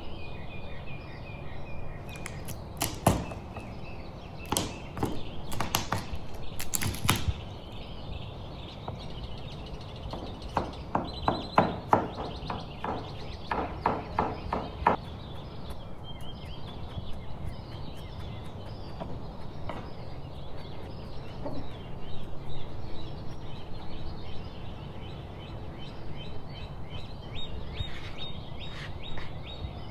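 Chef's knife chopping garlic on a plastic cutting board in two runs of rapid chops, followed by a few lighter taps. Birds chirp in the background.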